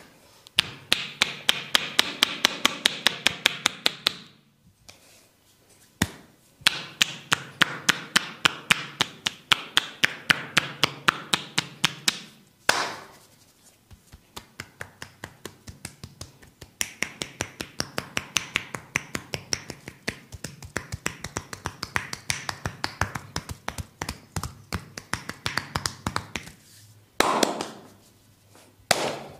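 A massager's hands striking the body in quick percussive massage strokes: several runs of rapid, even taps separated by short pauses, with a couple of heavier single slaps near the end.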